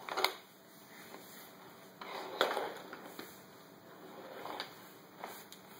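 Small toy train cars knocking and clattering on a wooden track as they are pushed along by hand: a handful of light, irregular knocks, with a short rattle after one of them about halfway through.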